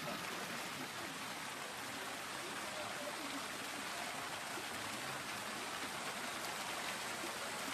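Water pouring steadily from stone dragon-head spouts into a hot-spring pool: a constant, even splashing rush.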